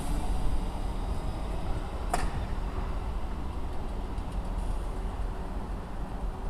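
Train at a station platform, a steady low rumble, with a single sharp click about two seconds in.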